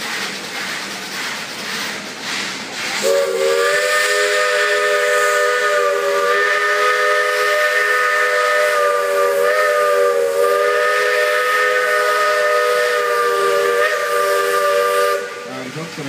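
Whistle of the 1912 Lima Shay steam locomotive blowing one long blast of about twelve seconds, starting about three seconds in and cutting off near the end. Several notes sound together, with a slight waver in pitch. A steam hiss comes before it.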